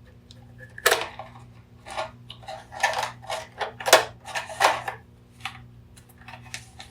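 Scissors snipping and clacking at the wires inside a battery-powered plastic alarm clock: a string of irregular sharp clicks and clacks, loudest about a second in and near four seconds, dying away before the end.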